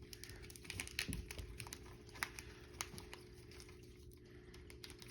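Faint scattered clicks and light rustling of hands handling a cuckoo clock, over a low steady hum.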